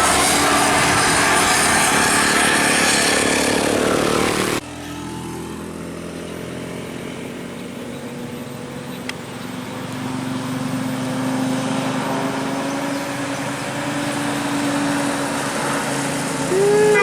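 Road traffic. A large vehicle passes close with loud engine and tyre noise that cuts off abruptly about four and a half seconds in. A quieter engine hum of approaching traffic follows and slowly grows, and a brief horn note bends up and down at the very end.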